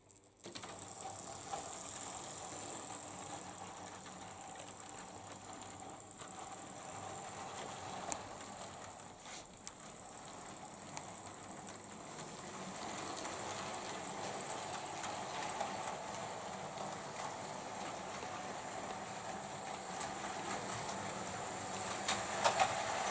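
Model railway train running on its track: the steady whir of the Class 90 model locomotive's small electric motor and gears, with a few sharp wheel clicks. It starts about half a second in and grows louder toward the end as the train passes close.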